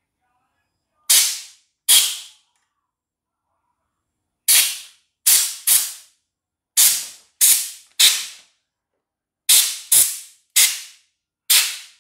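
Compressed-air blow gun fired in about a dozen short blasts, each a sharp hiss of air that cuts in suddenly and fades within half a second, coming irregularly in twos and threes. The blasts clean dust out of an opened portable embroidery machine's mechanism.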